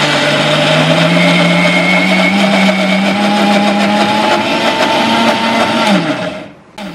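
Electric mixer grinder running with a steel jar of soaked chana dal being ground to a coarse paste; its motor hum climbs slowly in pitch. About six seconds in it is switched off and winds down with a falling pitch.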